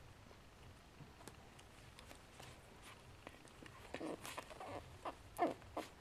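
Two five-week-old Chihuahua puppies play-fighting on a quilted blanket: faint rustling and small clicks, then from about four seconds a quick run of short puppy squeaks and grunts, the loudest near the end.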